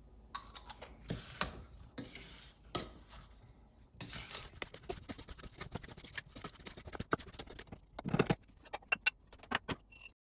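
A wooden spoon stirs sugar-coated strawberries in a stainless steel saucepan, scraping and knocking irregularly against the pan. The loudest knock comes about eight seconds in, and the sound stops abruptly just before the end.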